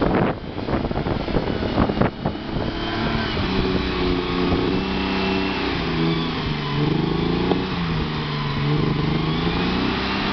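Mercedes-Benz Unimog engine pulling under load as the truck wades through water and climbs out, its pitch rising and falling several times. Water splashing around the wheels in the first couple of seconds.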